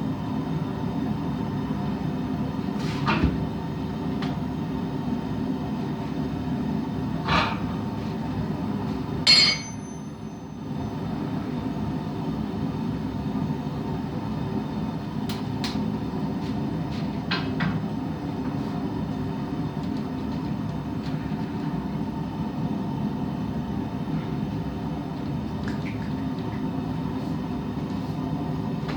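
A forge running with a steady hum, broken by a few sharp metal clinks; the loudest clink, about nine seconds in, rings briefly. The hum dips for a moment just after it.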